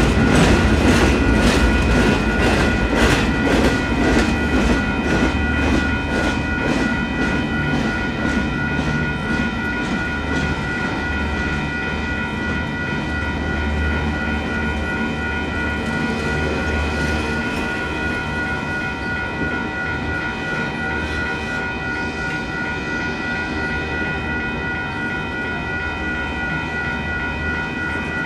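Empty Union Pacific intermodal freight cars rolling through a grade crossing, with a low rumble and wheels clicking over rail joints about twice a second, the clicking fading after the first eight seconds or so. Throughout, the crossing's WCH electronic bells ring steadily on top.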